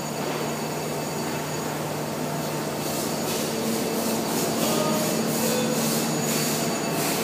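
Background noise of a large locomotive repair workshop: a steady machinery hum with faint steady tones, joined from about three seconds in by a run of short, irregular hissing bursts.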